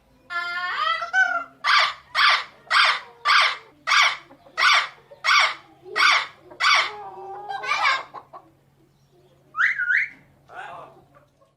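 Green ringneck parrot (rose-ringed parakeet) calling while agitated and in a fighting mood: a drawn-out call, then a run of about a dozen short sharp squawks roughly two a second, and two more calls near the end.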